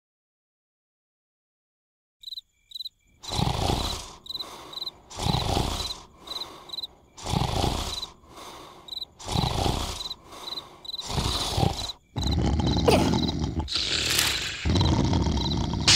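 Cartoon snoring: loud snores about every two seconds, running into longer unbroken snores for the last few seconds, over steady cricket chirps. The first two seconds are silent.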